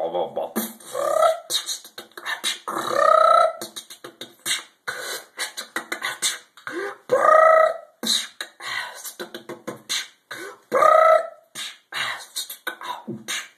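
Techno-style beatboxing: a fast, unbroken run of clicking, snare-like mouth percussion, broken four times by a held vocal note that bends upward.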